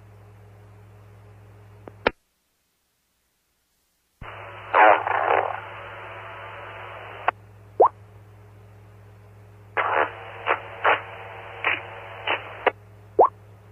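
Two-way FM radio audio relayed through a 2-meter amateur repeater: the channel's hum and hiss, a click and about two seconds of dead air, then a keyed transmission that opens with a loud blurt. Later a run of about six short, sharp blurts: armpit fart noises made into the radio microphones.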